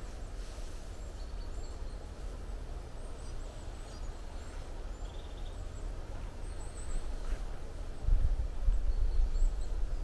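Footsteps on a soft, mossy forest floor with scattered short, high bird chirps and a low rumble that grows louder about eight seconds in.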